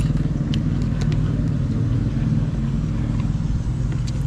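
A steady, low engine drone with an even, rapid pulse, like a motor idling close by, with a few light clinks of a spoon against a plate.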